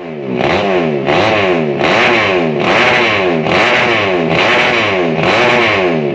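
Yamaha Jupiter Z underbone road-race bike, its four-stroke engine tuned up to 130cc, revved hard again and again on the stand. About seven sharp rises and falls in revs come roughly one a second.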